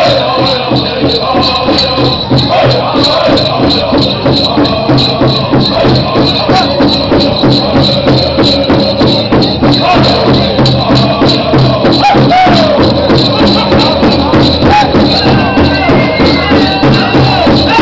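Powwow drum group singing over a steady beat on the big drum, with the jingling of dancers' bells.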